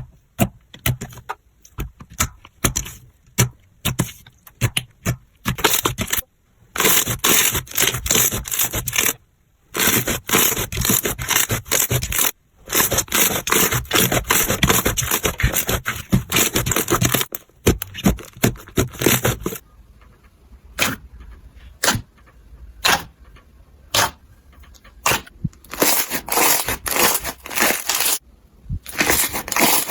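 Crunchy slime being squeezed and pressed by hand: sharp crackles and pops, with several stretches of dense crackling a few seconds long between sparser clicks.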